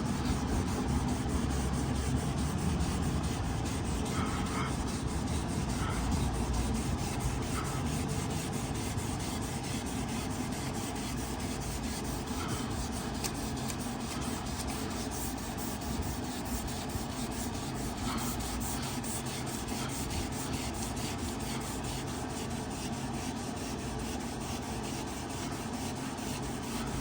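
600-grit wet sandpaper rubbing steadily over a plastic headlight lens in repeated strokes, sanding off the yellowed, oxidized surface.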